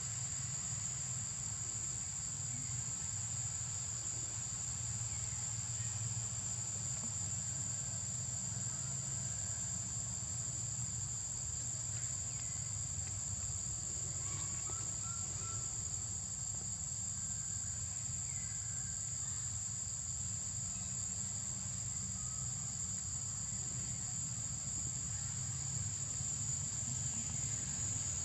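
Insects droning steadily at one high pitch, over a low steady rumble, with a few faint short chirps near the middle.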